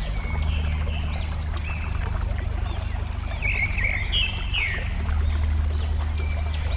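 Flowing water babbling steadily with a low rumble underneath, while birds sing over it in repeated short, arching whistled notes.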